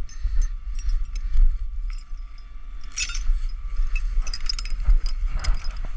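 Scattered metallic clinks and rattles of tow chain and hook hardware being handled, over a steady low rumble.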